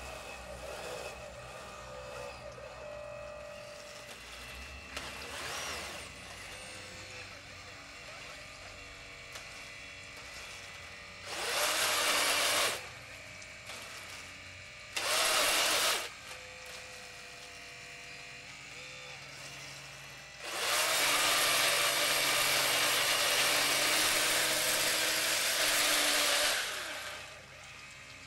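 Electric motors of a radio-controlled model wheel loader whining steadily as it drives and works its bucket in wet mud. Three louder bursts of harsh whirring come with heavier work: a short one a little after ten seconds, another a few seconds later, and a long one of about six seconds near the end.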